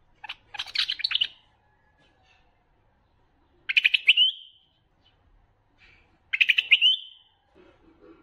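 Bulbul singing: three short phrases, each a quick run of notes ending in a clear whistled note, a few seconds apart.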